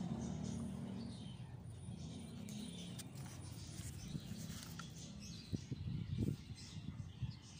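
Small birds chirping faintly over a low steady rumble, with a few soft knocks about three-quarters of the way through.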